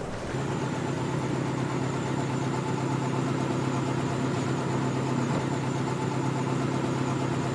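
A tugboat's engines running steadily: a low, even-pitched hum that sets in about half a second in and holds level, with a faint high whine above it.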